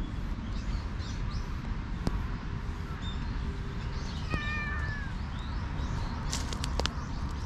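Stray cat giving one short meow a little past halfway, over a steady low rumble, with a few sharp clicks near the end.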